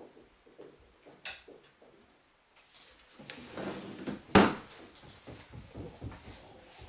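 Scattered light knocks and clicks, with a rushing noise building from about two and a half seconds in up to one sharp knock at about four and a half seconds, followed by more soft knocks.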